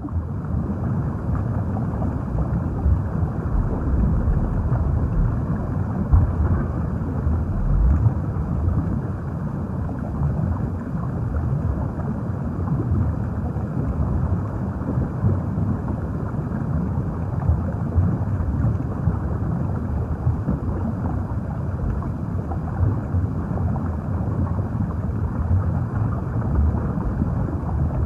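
Underwater ambience: a steady, muffled low rumble and wash of water, with nothing in the higher pitches.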